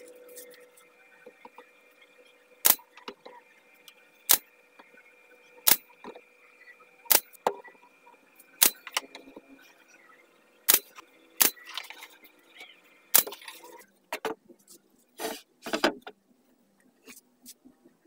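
Pneumatic nail gun firing eight sharp shots, about one every second and a half, as it fastens teak pieces of a box frame. A faint steady hum runs beneath the shots. Near the end come a few duller knocks of wood being handled.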